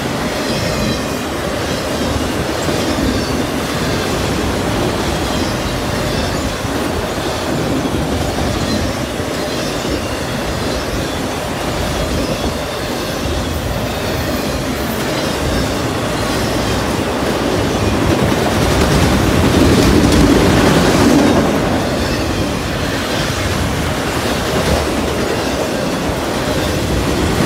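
Autorack freight cars rolling past close by: a steady rumble of steel wheels on the rails with a rhythmic clickety-clack, swelling somewhat louder about two-thirds of the way through.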